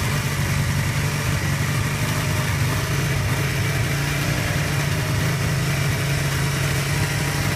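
1981 Kawasaki KZ440B's parallel-twin engine running at a rough idle with the choke set about half-way, pulsing steadily.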